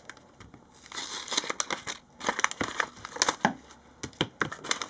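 Paper envelope crinkling and rustling as it is opened with scissors and handled, in irregular bursts with sharp snips and clicks starting about a second in.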